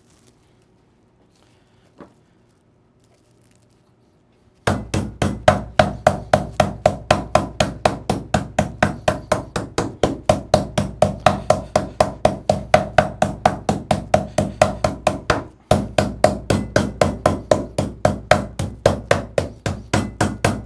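Light meat mallet pounding chicken breast flat through plastic wrap on a wooden cutting board: rapid, even strikes about four a second. They begin about five seconds in, with a brief break about three-quarters of the way through.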